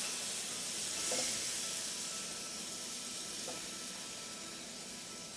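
Hot stock poured through a wire strainer into a hot pan of arborio rice, sizzling and bubbling as the first liquid goes in to hydrate the risotto. The sizzle slowly fades.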